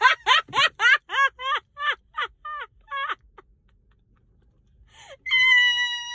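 High-pitched wordless cries: a quick run of short rising-and-falling yelps that slows and fades, then after a pause one long held high note.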